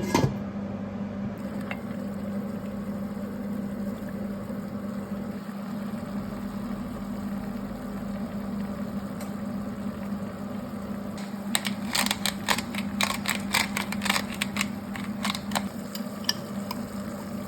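Food simmering in a pan over a steady low hum, with a spoon scraping and clinking against the pan for a few seconds in the second half.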